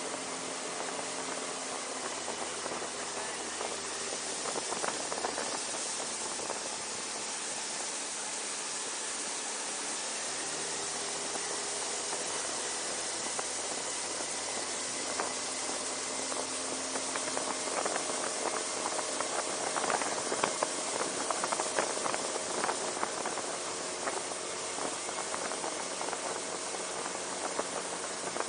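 Small boat's motor running steadily under a heavy hiss of wind and water spray on the microphone, with scattered clicks and knocks.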